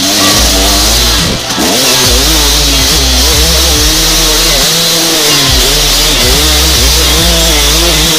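KTM 250 EXC enduro motorcycle's two-stroke engine under way, its pitch rising and falling with the throttle about once a second, with a brief drop about one and a half seconds in. Wind rushes steadily over the helmet-mounted microphone.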